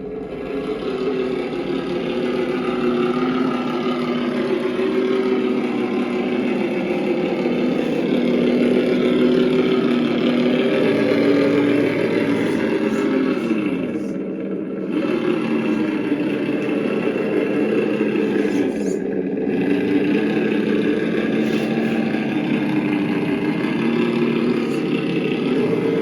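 Engine sound module in an RC scale Power Wagon truck playing a simulated engine through a small speaker, its pitch stepping up and down with the throttle.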